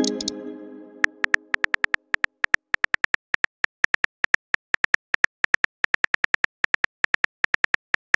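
Simulated phone-keyboard typing clicks, a quick, slightly uneven run of short taps as a text message is typed out. At the start a chime-like note rings and fades over about two seconds.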